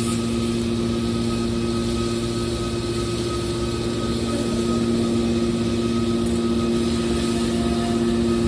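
Scrap metal baler's hydraulic power unit, its electric motor and pump running with a steady hum, getting slightly louder about halfway through.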